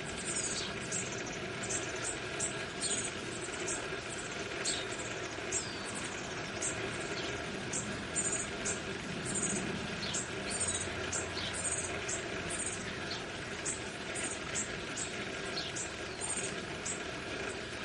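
Bushtits giving many short, high, thin chirps, several a second, over a steady low background hum.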